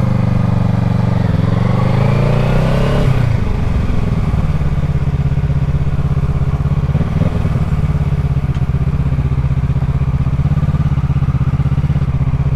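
Kawasaki Ninja 650 parallel-twin motorcycle engine revving up for about two seconds, then dropping back to a steady, low, evenly pulsing running note.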